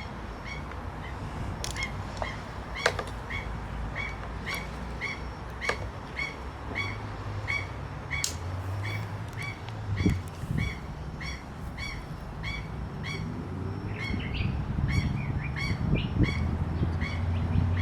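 A bird calling over and over in short, evenly spaced chirps, about two a second. A few sharp clicks come in the first several seconds.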